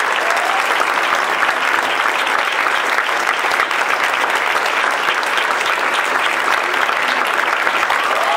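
Audience applauding: dense, steady clapping from a theatre crowd.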